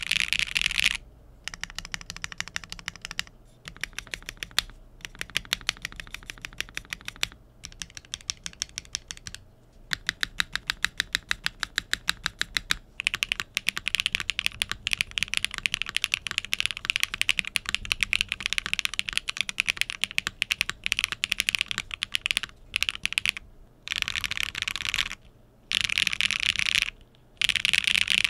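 Typing on a Tess65 mechanical keyboard with Keygeek Kyubi clacky switches in a polycarbonate plate and IDK Koala keycaps: fast, dense key clacks in several runs separated by short pauses. The board is first in its PCB-gasket mount, then in top mount.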